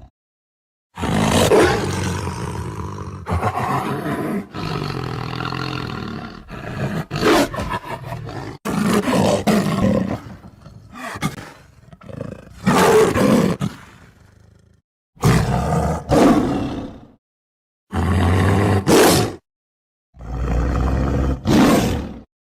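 Tiger roars and growls, about ten separate calls of a second or two each, with short silent gaps between some of them.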